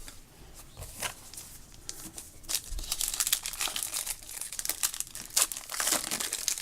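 Trading card pack wrapper being torn open and crinkled by hand, a run of sharp crackles that thickens about two and a half seconds in.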